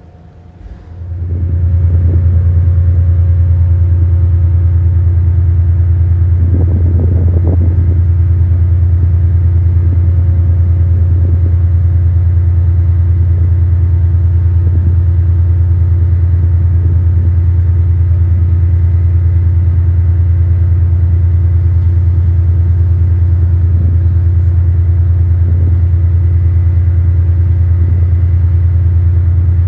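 A loud, steady low engine drone that starts about a second in and holds unchanged, with faint steady tones above it.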